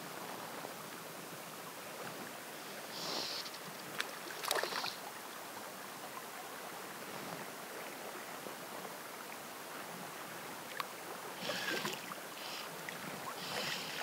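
Steady hiss of flowing spring-creek water. A few short swishes come through about three seconds in and again near the end, with a sharp click about four seconds in.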